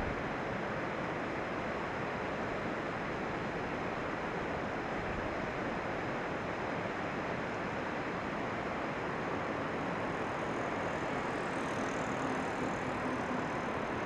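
Steady rushing background noise with no distinct events, unchanging in level.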